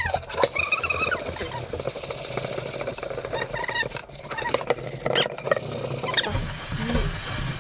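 Sponge scrubbing the burnt underside of an old frying pan coated in a stiff foamy paste of baking soda, citric acid and dish soap: a continuous wet rubbing noise with a few short squeaks, the first about half a second in.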